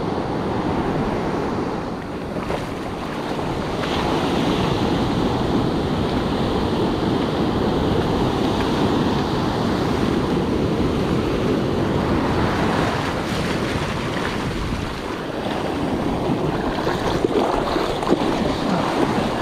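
Ocean surf breaking and washing up the sand in a steady rush of foam, swelling and easing, with a few sharper splashes near the end.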